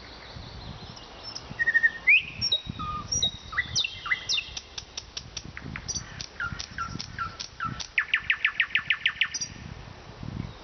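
Nightingale singing one phrase of whistled notes and sharp sweeping strokes, ending near the end in a fast, loud run of about ten repeated notes.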